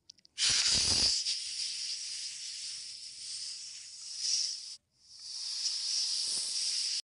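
Cobra hissing, a dubbed-in sound effect for an animated snake: two long hisses, the first with a low rumble under its opening second, the second starting about five seconds in and cutting off suddenly near the end.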